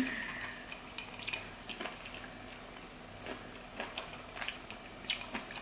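Faint, irregular mouth sounds of someone tasting a drink: soft lip smacks and tongue clicks, a little louder at the very start.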